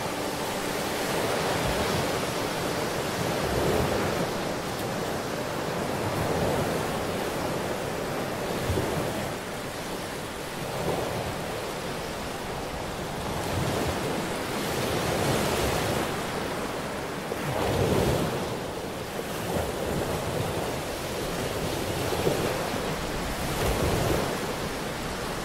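Ocean surf: waves washing in, swelling and fading again about every two seconds.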